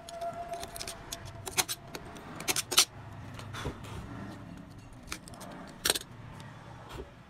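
Sharp metallic clicks, clinks and scrapes as an alternator stator's steel core and copper windings are worked with a utility knife and handled. The loudest cluster comes two to three seconds in, with another sharp click near six seconds, over a steady low hum.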